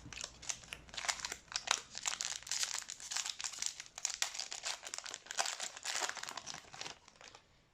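Crinkling and crackling of a trading-card pack's wrapper being torn open and handled, a dense run of irregular crackles that stops shortly before the end.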